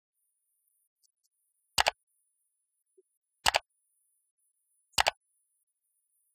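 Three mouse-click sound effects, each a quick double click, about a second and a half apart, belonging to a subscribe-button animation.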